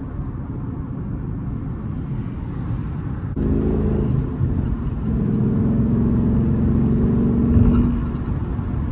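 The stock 5.0 Coyote V8 of a 2014 Mustang GT running on the move. It starts as a low rumble, then about a third of the way in turns suddenly louder with a steady engine tone, as under acceleration.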